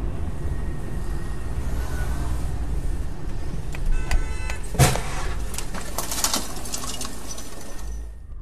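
Dashcam recording from a car on a wet street: a steady low engine and road rumble. About four seconds in there is a brief high-pitched tone, then a single sharp thump, followed by several lighter clicks and knocks.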